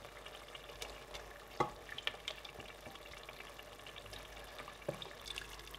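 Egusi sauce sizzling faintly in a steel pot, with scattered crackles and a wooden spoon knocking and scraping as it stirs the meat through, more ticks near the end.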